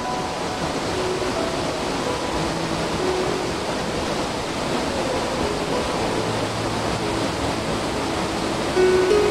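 Small waterfall pouring into a river pool, a steady even rush of falling water.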